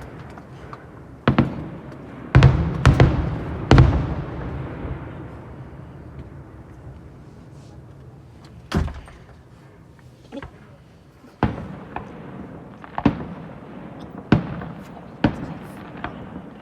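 Aerial fireworks bursting. Several heavy bangs come close together in the first four seconds, then single bangs follow about every second or two, each trailing off slowly.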